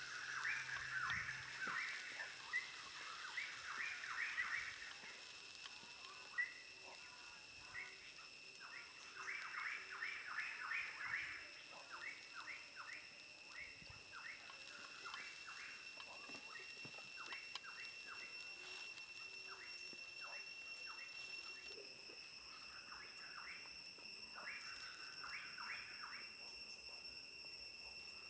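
Wooden spatula stirring diced corn and carrot in a metal pan over a wood fire, in clusters of quick light scrapes, busiest in the first few seconds and again around ten seconds in. A steady high-pitched whine runs underneath.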